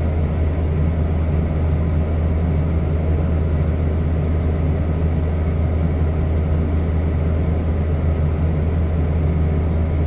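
JCB TM320S loader's diesel engine running steadily at a constant speed, heard from the cab.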